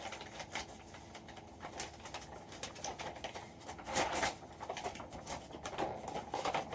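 Hands handling a card pack and its plastic packaging: an irregular run of small crinkles and clicks, louder about four seconds in.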